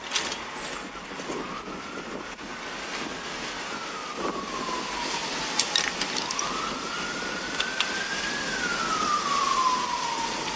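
Emergency vehicle siren on a slow wail, rising and falling in pitch about twice, over a steady background hiss with a few sharp clicks.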